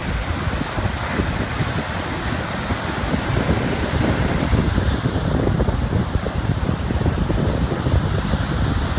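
Small ocean waves lapping on a beach, a continuous wash of surf hiss, with a low rumble that suggests wind buffeting the microphone. The higher hiss softens a little about halfway through.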